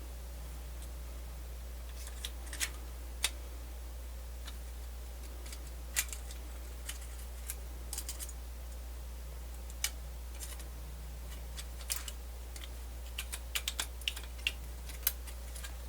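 Irregular small clicks and taps of tiny plastic and metal parts being handled and fitted while a Sony MZ-N420D MiniDisc walkman's mechanism is put back together, more frequent near the end, over a steady low hum.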